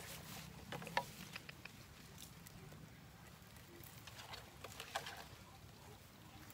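Scattered light taps, clicks and rustling from working a crab loose from the netting of a fish trap, with the sharpest clicks about a second in and again near five seconds.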